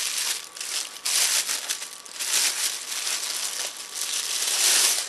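Clear plastic wrapping crinkling and rustling as it is pulled off a camera body, in several surges, the loudest near the end.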